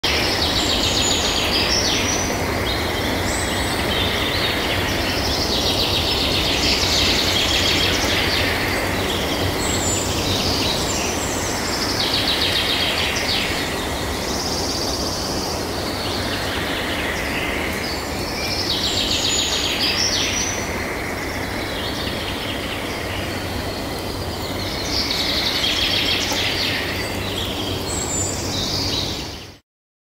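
Birds singing in short chirping, trilled phrases that recur every few seconds over a steady wash of outdoor background noise. The sound cuts off suddenly near the end.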